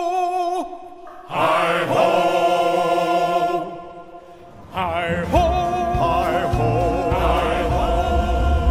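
Soundtrack music of choir voices holding long chords, in three swells separated by short pauses, with a low rumble joining under the last few seconds.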